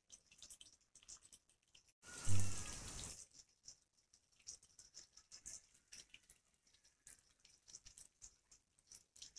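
Marinated chicken pieces deep-frying in hot oil: a faint, steady sizzle of small crackles and pops. About two seconds in, a louder brief noise lasts for about a second.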